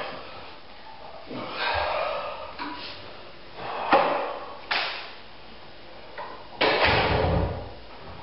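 A run of knocks and bangs in a small tiled kitchen, like cupboards or drawers being handled: a sharp knock about four seconds in, another shortly after, and a heavier bang with a low thud near the end.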